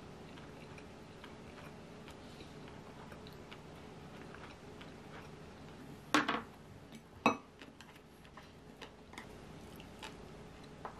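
Lock&Lock plastic food container and its clip lid knocking on a table twice a little past halfway, the first a short clatter, the second a sharp single knock. Faint light clicks of wooden chopsticks on a plate and plastic come and go under a steady room background.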